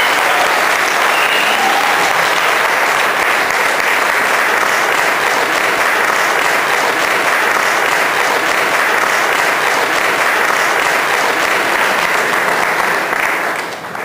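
Wedding congregation applauding steadily after the couple's kiss, the clapping dying away near the end.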